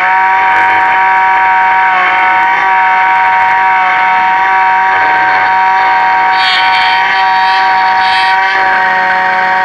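Miracle A7 Plus key-cutting machine milling a Mercedes HU64 key blank: the cutter spindle gives a loud, steady high whine made of several pitches at once. About two-thirds of the way through there are a few brief scratchy bursts of the cutter biting.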